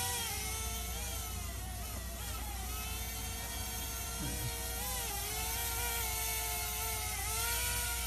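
Small quadcopter's motors and propellers whining in flight, the pitch rising and dipping several times as the throttle changes. A steady low rumble of wind on the microphone lies underneath.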